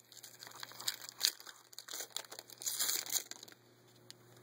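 A trading-card pack wrapper being torn open and crinkled by hand: an irregular run of crackling rustles, loudest about three seconds in, then dying away.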